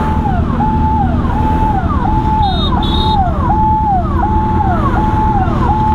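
Ambulance siren wailing in a fast repeating cycle, each note held high and then sliding down, about one and a half times a second, over the low rumble of idling traffic.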